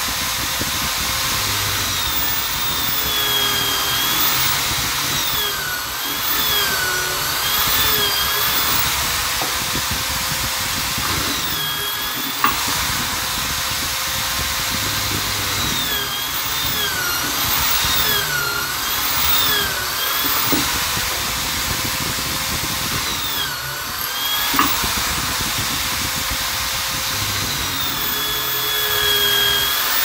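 Corded Vonder drill in a drill-press stand running continuously while boring into a wooden block. Its motor whine dips in pitch each time the bit bites into the wood and climbs back as the load eases. A few sharp knocks are heard along the way.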